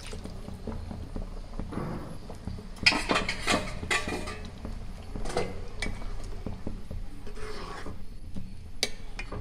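A spoon stirring chicken curry in a non-stick pan, with repeated clinks and scrapes against the pan from about three seconds in.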